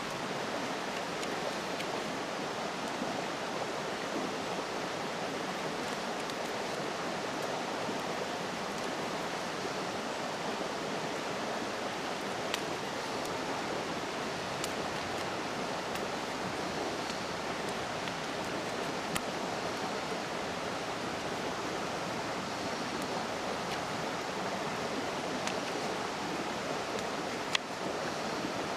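A steady rushing noise with a few faint sharp clicks scattered through it.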